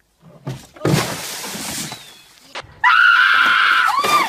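A bucketful of ice water splashing down onto a person about a second in. About three seconds in, a woman's long, loud, high-pitched scream.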